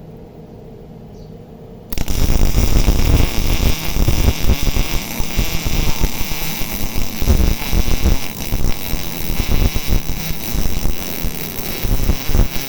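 A 180 A single-phase MIG welder hums steadily. About two seconds in, the arc strikes and welding starts: a loud, irregular sizzling noise that runs on steadily.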